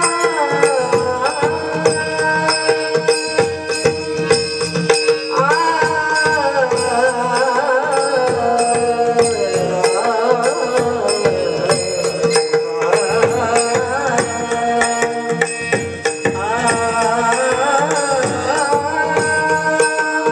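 Marathi devotional bhajan in raga Bhairavi: a steady drone under a melody line that glides up and down, with a regular beat of high clicks.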